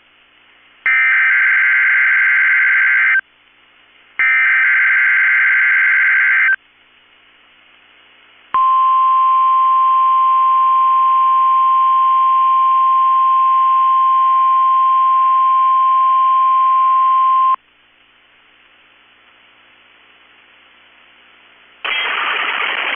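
NOAA Weather Radio test signals. First come two bursts of screechy digital SAME header data, each about two seconds long and a second apart. After a short pause the steady 1050 Hz warning alarm tone sounds for about nine seconds, marking a Required Weekly Test. Near the end a loud hiss of static sets in.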